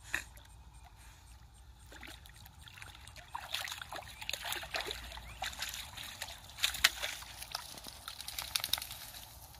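A dog splashing and sloshing out of shallow river water onto rocks, with water running and dripping off its coat. There is one sharp splash near the start, and the splashing gets busy from about three and a half seconds in.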